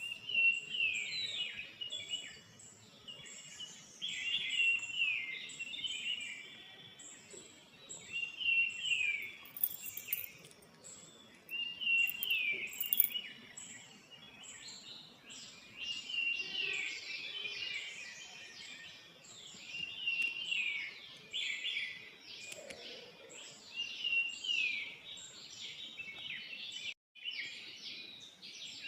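Birds singing: short phrases of quick, falling chirps repeated every few seconds, turning into denser, overlapping chirping from about halfway.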